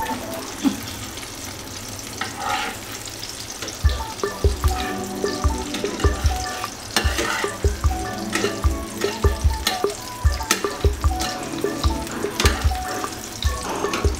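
Oil sizzling in a non-stick frying pan as flat round discs fry, with the spatula clicking and scraping against the pan as it turns them.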